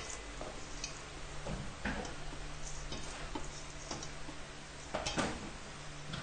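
A hand mixing a sticky rice mixture in a stainless steel bowl: irregular soft knocks and scrapes against the metal, loudest about two seconds in and again near five seconds, over a steady low hum.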